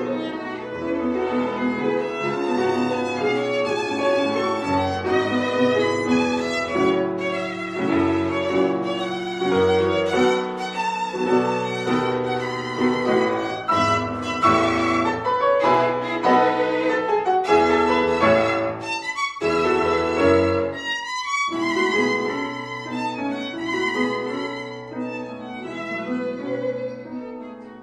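Instrumental background music, a melody of many short notes over a steady lower part.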